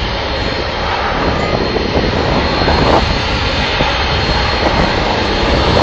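Jet airliner engines running, a loud, steady rush of noise that grows slightly louder partway through.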